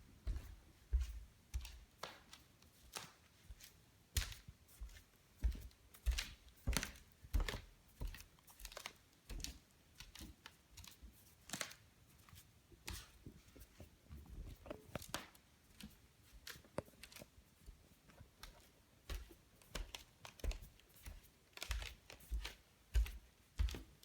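Cali Bamboo floorboards clicking and crackling as they are walked on, a string of sharp snaps, each with a low thump beneath, about one or two a second. This is the noisy bamboo floor the owner is showing.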